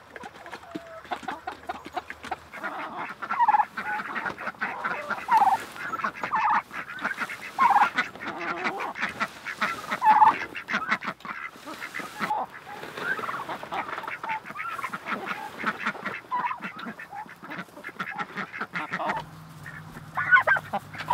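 A mixed flock of domestic turkeys, ducks and chickens calling: scattered short calls, amid many small clicks.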